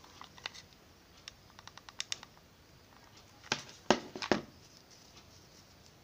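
Handling noises while gluing satin ribbon petals with a hot-glue gun. There is a run of light clicks in the first couple of seconds, then three louder short knocks with a little rustling between about three and a half and four and a half seconds in.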